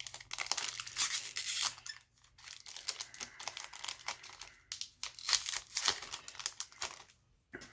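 Foil wrapper of a Cardfight!! Vanguard booster pack being torn open and crinkled, a dense crackling in two spells with a short lull about two seconds in.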